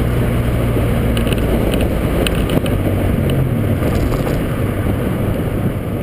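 Honda Civic engine running as the car drives along, with wind buffeting the fender-mounted camera's microphone. The engine note drops a step about three and a half seconds in.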